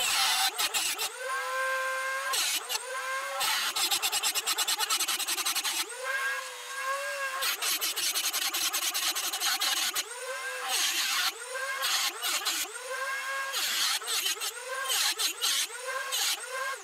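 Dremel rotary tool with an abrasive metal cut-off wheel, set in a router attachment, grinding a slot into a metal T-nut blank. The motor's high whine repeatedly dips in pitch as the wheel bites and then recovers, with harsh rasping grinding in between.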